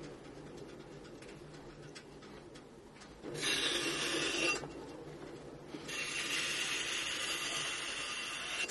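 Clay being thrown on a pottery wheel: wet hands rubbing on the turning clay as the wheel runs. A louder hissing rub comes in twice, about three seconds in for a second or so and again from about six seconds on, with a faint high whine in it.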